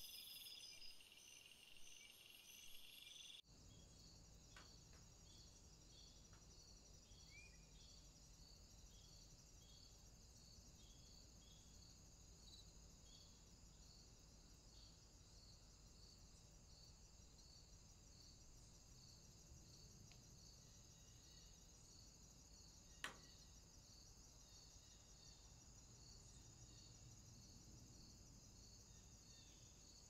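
Near silence: a faint, steady, high-pitched pulsing that repeats at a regular pace, changing abruptly about three and a half seconds in. One sharp click comes about 23 seconds in.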